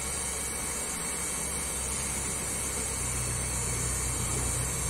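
Stearmel heat gun running, its fan blowing hot air in a steady hiss over a low motor hum, with the hum rising slightly about three seconds in.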